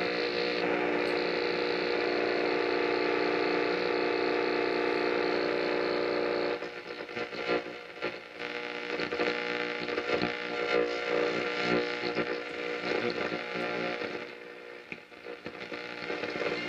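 Vintage shortwave radio giving off a steady hum made of many held tones. About six and a half seconds in, this gives way to uneven, crackling static.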